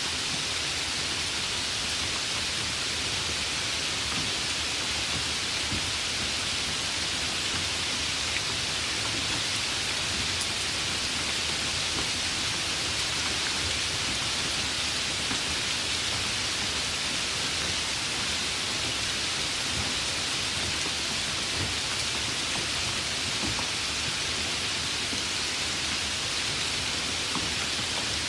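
Steady spring rain falling: an even hiss with a few faint scattered drop ticks.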